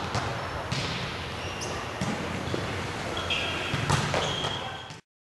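Volleyballs being hit and bouncing on a sports court in a large hall, several sharp smacks with echo, the loudest about four seconds in as a spike is hit, with sneakers squeaking on the court. The sound cuts off abruptly just before the end.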